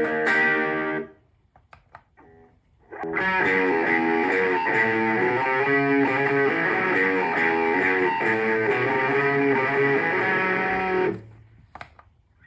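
Electric guitar played through a Zoom G1X Four multi-effects pedal preset patch: a short phrase that stops about a second in, a pause with a few quiet plucks, then a longer run of notes from about three seconds in that cuts off near the end.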